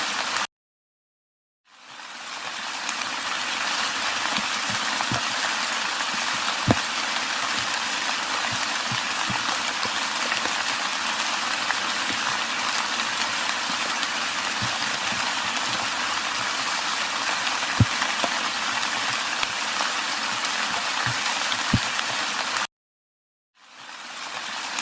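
Steady rain falling, an even hiss with scattered louder single drops tapping. It cuts out to silence twice, early and near the end, and each time fades back in.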